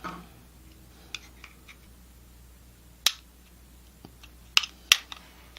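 A few sharp clicks and light taps from the casing and parts of a mini PC being handled as it is opened up, with the loudest click about three seconds in and two more near the end.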